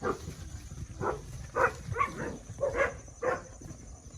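A dog barking, a string of about seven short barks in quick succession.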